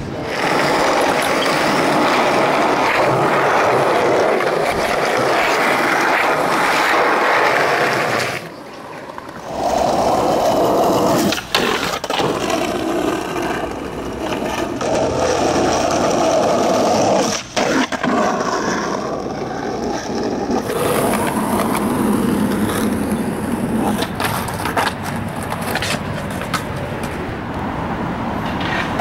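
Skateboard wheels rolling on concrete and paving, with a few sharp clacks of the board hitting the ground or a ledge.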